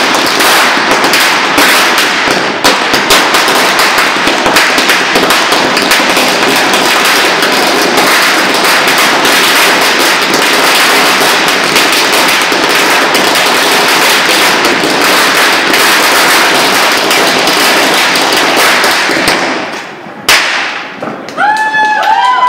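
A long string of Diwali firecrackers burning through, a dense rapid-fire chain of bangs and crackles. The chain dies away about twenty seconds in, followed by one last loud bang.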